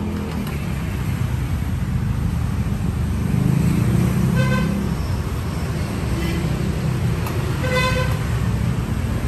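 Steady rumble of road traffic going past, swelling briefly as a vehicle passes. A vehicle horn gives two short toots, one about midway and one near the end.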